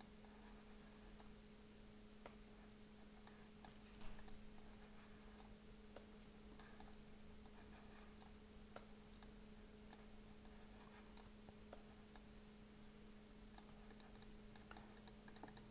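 Faint, scattered clicks of a computer mouse and keyboard, with a quick run of clicks near the end, over a low steady hum.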